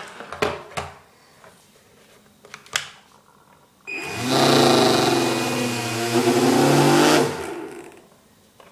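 Small electric motor of an RC boat running on the bench: a few clicks, then the motor spins up sharply about four seconds in, runs steadily with a whine and hiss for about three seconds, and winds down.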